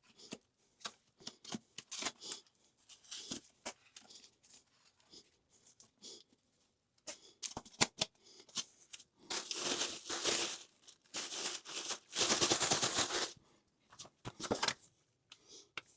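Old wax ring being scraped and wiped off a toilet floor flange: scattered short scrapes and taps, with two longer, louder scraping stretches a little past the middle.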